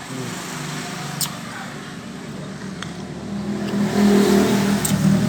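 A motor vehicle engine running, growing louder from about three seconds in, with a few sharp clicks over it.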